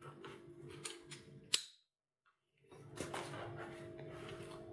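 Hard plastic side-release buckle and nylon webbing strap being handled: light clicks and rustles, with one sharp plastic click about a second and a half in. The sound then drops out completely for about a second and comes back as faint handling over a low room hum.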